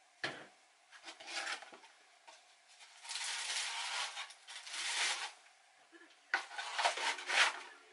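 A cardboard hair-dye box and plastic dye bottle being handled at a sink: irregular rustling, rubbing and scraping, with a longer stretch of about two seconds in the middle and another flurry near the end.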